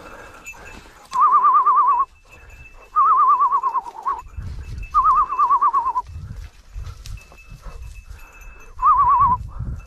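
Electronic beeper collar on a pointing dog sounding a warbling electronic tone four times, each about a second long, with lighter rustling between.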